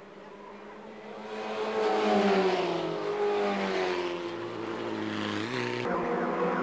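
Formula Ford racing cars passing at speed, their engine notes building about a second in and falling and rising as they go by. Near the end the sound cuts abruptly to a steadier engine note from other racing cars.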